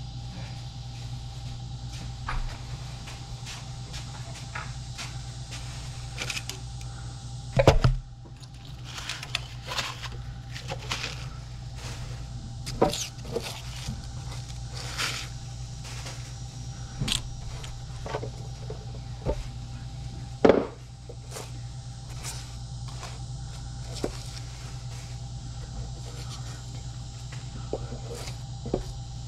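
Hands working around a water heater's top fittings: scattered light clicks, taps and scrapes, with two louder knocks about 8 and 20 seconds in, over a steady low hum.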